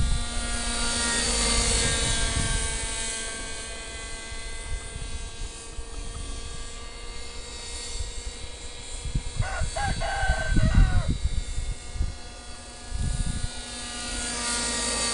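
Radio-controlled model helicopter flying, a steady whine from its motor and rotor that swells as it passes close near the start and again near the end. A rooster crows once about ten seconds in.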